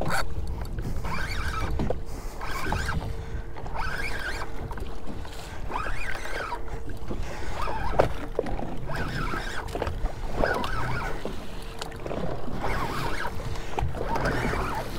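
Choppy sea slapping against a small skiff's hull, with wind rumbling on the microphone and a faint steady hum underneath.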